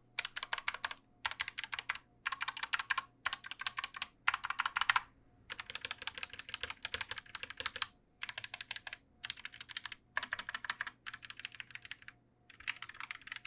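Typing on a Gamakay MK61 60% mechanical keyboard with linear optical Yellow V2 switches and pudding keycaps: rapid keystroke clicks in bursts of about a second, split by short pauses, with one longer run from about five and a half to eight seconds in. The clicks are quiet, as linear switches with a short actuation travel give.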